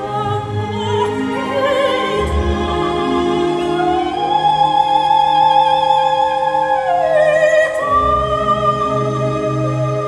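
Operatic music with orchestral accompaniment: a singer holds long notes with vibrato and slides between them, the longest note held for about three seconds in the middle.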